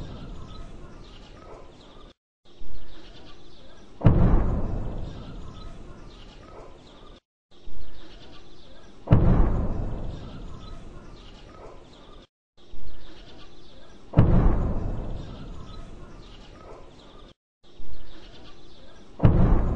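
Distant bomb explosions: a sharp thud, then about a second and a half later a heavy boom that rumbles away over a few seconds. The pair recurs at even intervals of about five seconds, four times, with short gaps of dead silence between.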